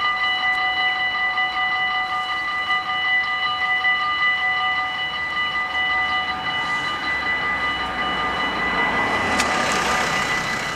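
Automatic level-crossing warning bells ringing in a steady, continuous tone while the half-barriers lower, warning that a train is approaching. Near the end a van drives up close by, its engine and tyre noise swelling about nine to ten seconds in.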